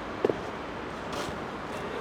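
A single short knock about a quarter of a second in, over steady background noise.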